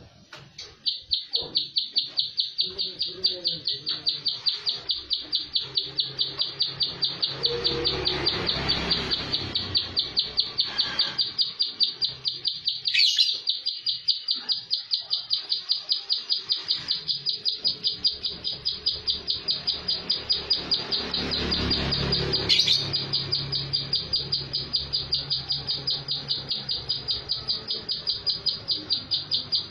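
Caged prinia (prenjak sawah) singing a rapid, unbroken run of high, even notes, about five a second: the tight 'tembakan' song. A low rumble swells twice, and a sharp click comes about midway.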